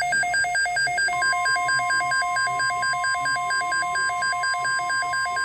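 Weather radio alert alarm: a rapid alternating two-tone beeping, low and high pitches switching about four to five times a second. From about a second in it is joined by a steady single-pitch tone, the 1050 Hz NOAA Weather Radio warning alarm tone that opens a watch broadcast.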